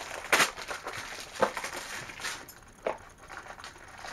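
A small cardboard Funko Mystery Minis blind box being opened by hand, making a few sharp cracks and rustles of packaging. The loudest crack comes about a third of a second in, and smaller ones follow over the next few seconds.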